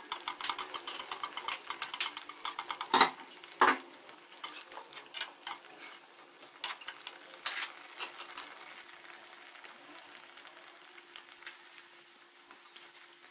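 A metal slotted spoon clicks and scrapes against an aluminium kadhai as kachoris deep-fry in hot oil, with a faint sizzle. Hot oil is being spooned over them so they puff up. The clicks come thick and fast at first, with two louder knocks about three seconds in, then grow sparse as the kachoris are turned and pressed.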